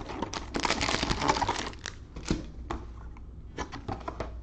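Crinkling of packaging and handling of a trading-card box: a dense crinkling stretch about half a second in lasting over a second, followed by a few sharp clicks and taps.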